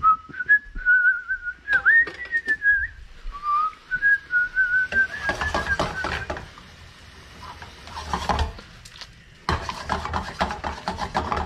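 A person whistling a wavering tune for about six seconds, while long chopsticks click and scrape in a metal skillet, stirring thin-sliced beef simmering with onions. The clicking and scraping grow busier near the end.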